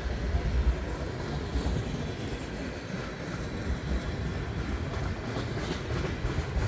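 Freight train of tank cars rolling past at close range: a steady low rumble of steel wheels on the rails.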